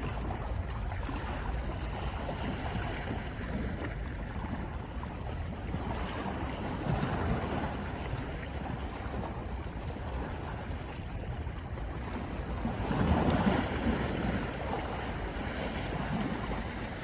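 Sea waves washing on the shore in a steady rush, with louder surges about seven and thirteen seconds in, and wind buffeting the microphone.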